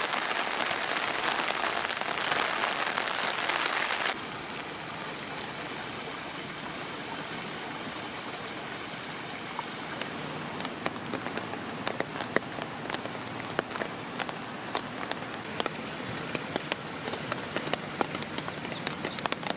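Rain falling, an even hiss. About four seconds in it drops suddenly to a softer hiss, and in the second half single drops tap plainly and more and more often.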